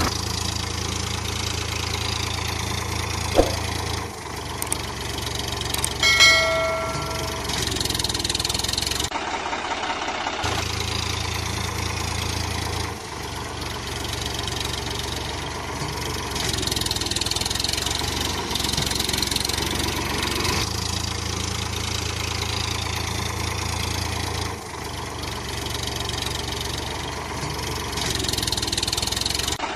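Tractor engine sound effect running steadily at idle and low revs, changing character every few seconds like spliced clips. A brief ringing tone sounds about six seconds in.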